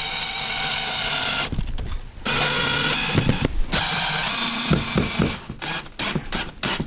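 Cordless DeWalt drill driving a screw through a metal transition track into the floor, its motor running in three spells of a second or so with short breaks and stopping about five seconds in. A few light clicks and knocks follow near the end.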